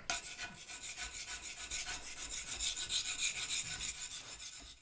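Hand tools rasping and scraping on stone gravestone slabs, a quick, even rubbing at about five strokes a second that fades near the end.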